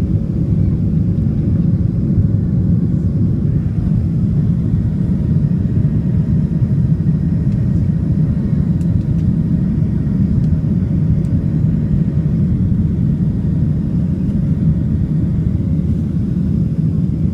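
Steady cabin noise inside a Southwest Airlines Boeing 737 climbing out after takeoff: a low, even rumble of engines and airflow with a faint steady hum.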